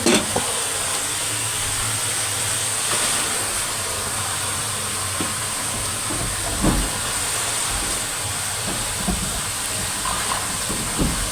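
Stove burner hissing steadily as it heats water, with a few light knocks.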